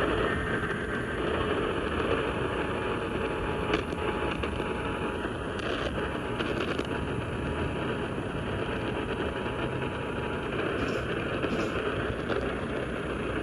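Radio static: a steady hiss from a radio receiver picking up no programme, with faint steady tones through the middle.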